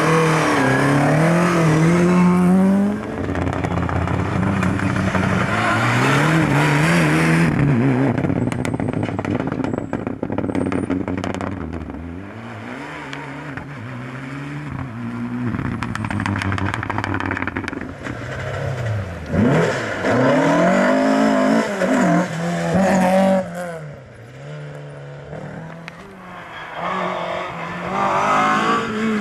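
Rally cars, Mk2 Ford Escorts among them, driven hard on a stage one after another: engines revving up and down through gear changes and lifts off the throttle, each car loud as it passes and then quieter.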